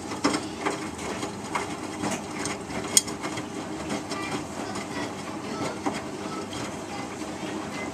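Miele Distinction 3000 front-loading washing machine tumbling a small cotton load in its main wash: the drum motor runs steadily while the wet laundry thuds and sloshes with irregular clicks. There is one sharp knock about three seconds in.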